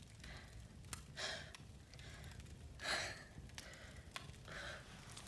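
A young woman breathing heavily, three loud breaths about a second and a half apart, with a few faint clicks between them.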